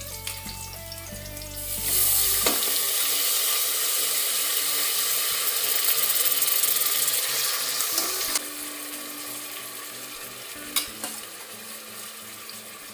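Drained, soaked rice and moong dal hit hot oil and ghee in a pressure cooker, setting off a loud sizzle about two seconds in. The sizzle eases after about eight seconds to a steadier, lower frying hiss, with a few clicks of a spoon against the pot.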